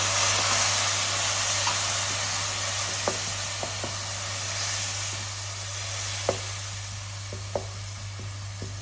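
Fried onion masala sizzling in a pot with tamarind water just added, the hiss easing off slightly. A wooden spoon stirs through it, with a few sharp clicks against the pot.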